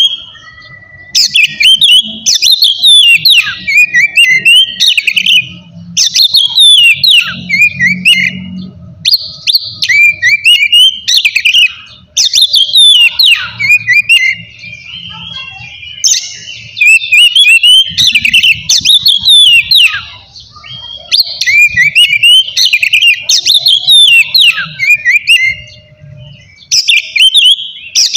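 Oriental magpie-robin (kacer) singing loud, full song: bursts of rapid, varied whistles and trills, each about two seconds long, separated by short pauses.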